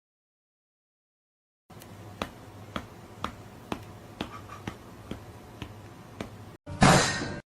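Sharp clicks, about two a second, over a faint hiss, starting after a short silence; near the end, a short loud burst of noise.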